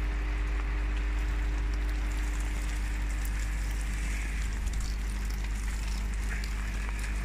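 Steady rain hiss with a low rumble underneath and a faint steady hum.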